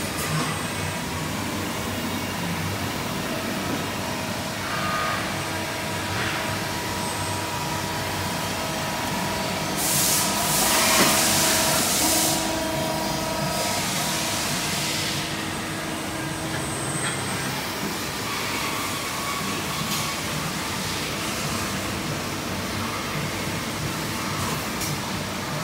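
Steady hum of running workshop machinery with faint steady tones. About ten seconds in, a loud hiss lasts around two seconds.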